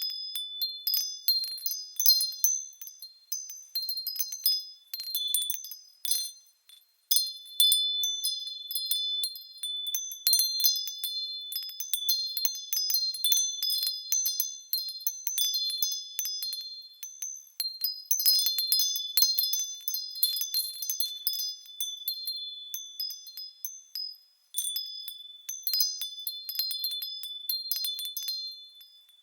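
Wind chimes ringing, struck at irregular moments and often several at once, a cluster of high tones that overlap and fade. The jangling thins out to brief lulls about six and a half seconds in and again around twenty-four seconds in.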